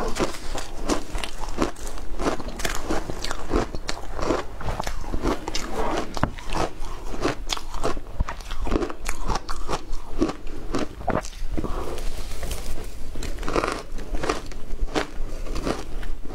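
Crunching of frozen shaved ice dusted with matcha and milk powder, bitten and chewed mouthful after mouthful, close to the microphone. The crunches are sharp and come a few each second.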